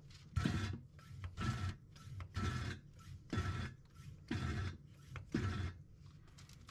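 Vacuum pump worked in strokes about once a second, drawing used gear oil out of a Dana 44 front differential through a hose.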